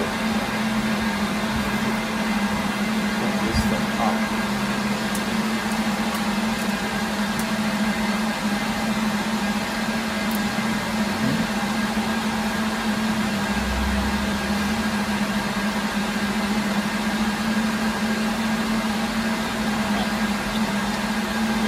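Cooling fans of rack-mounted network switches and servers running: a steady rushing noise with a low hum.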